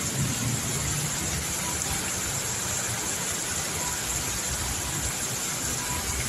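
Heavy rain pouring onto a flooded street: a steady, even noise of rainfall and water.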